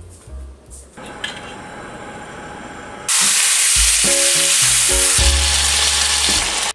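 Chicken pieces sizzling in a hot stainless steel frying pan, the sizzle jumping much louder about three seconds in.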